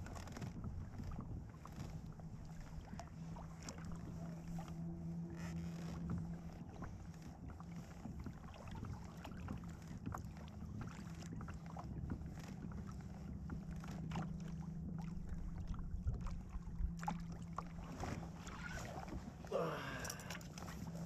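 Hobie Pro Angler kayak's drive running with a steady low hum as the boat moves, with scattered light clicks and knocks from the hull and gear. A short wavering squeal comes near the end.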